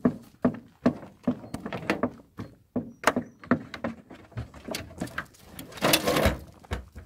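A hunting dog moving about in a wooden dog box on a pickup's bed, knocking against the wood about two to three times a second at first. The box door then opens and the dog scrambles out and jumps down, with the loudest thump and scuffle about six seconds in.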